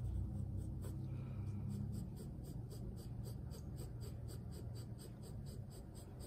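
Graphite pencil scratching across drawing paper in quick, repeated shading strokes, about four a second, laying down lines that wrap around a rounded form. Underneath runs a low rumble, strongest in the first two seconds.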